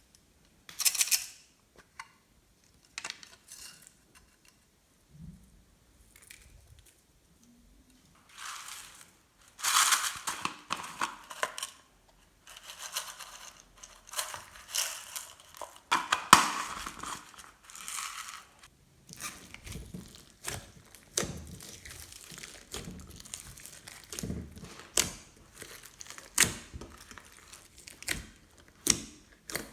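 Hands kneading and stretching glossy slime: sticky, noisy squishes and sharp little pops in irregular bursts. The sounds are sparse at first, dense from about nine to eighteen seconds in, then become a run of scattered crisp pops.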